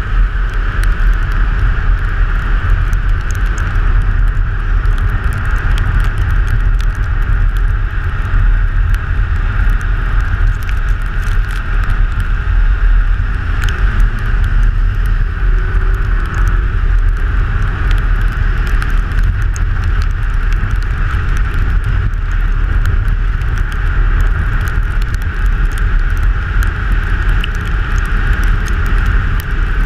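Rally car driving at speed: a steady, unbroken rumble of engine, tyres and wind, with no let-up.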